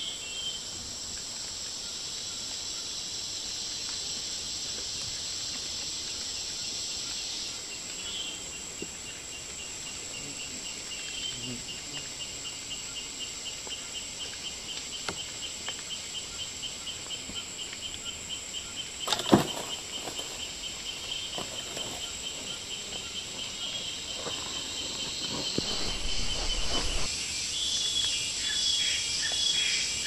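Forest insects calling: a steady high-pitched drone, joined from about eight seconds in by a rapid, evenly pulsed trill. A single sharp knock comes about two-thirds of the way through.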